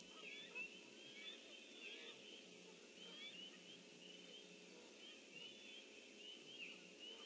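Faint chorus of small birds calling, many short high chirps overlapping throughout, over a steady low electrical hum.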